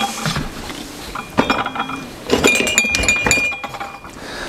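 Mugs clinking against each other in a wooden kitchen drawer as it is handled and slid. A single knock comes about a second and a half in, then a run of ringing clinks.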